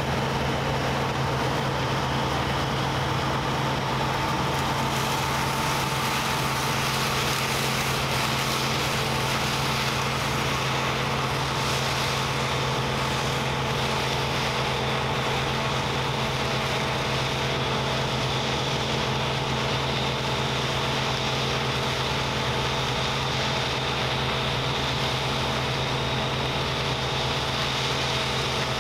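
Claas Dominator 98 SL combine harvester running steadily while harvesting wheat, a constant machine drone with an unchanging pitch.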